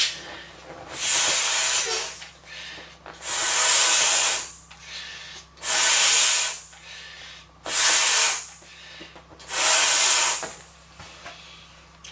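A large inflatable beach ball being blown up by mouth: five long, rushing blows of breath into its valve, about two seconds apart, with quieter pauses between them.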